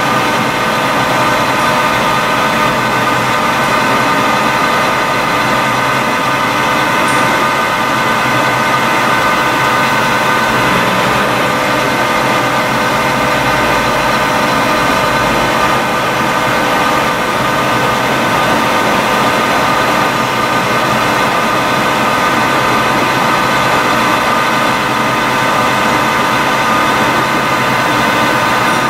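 Proturn 1745P CNC centre lathe running at a constant speed: a steady machine noise with an unchanging whine.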